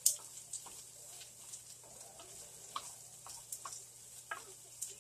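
Ground beef with green peppers and onions sizzling in a pan, with a steady high hiss, while a wooden spoon stirs and scrapes it, making scattered light clicks and a sharp clack right at the start.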